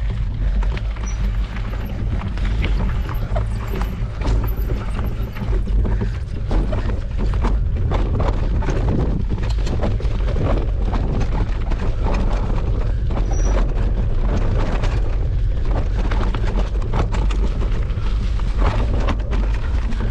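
Mountain bike riding over an unpaved dirt trail: tyres crunching and the bike rattling and knocking over bumps, with a constant wind rumble on the GoPro's microphone.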